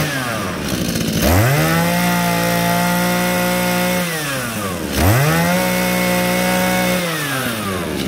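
Shindaiwa two-stroke brush cutter engine being revved: a short blip at the start, then two throttle-ups held at high speed for about three seconds each, dropping back toward idle in between.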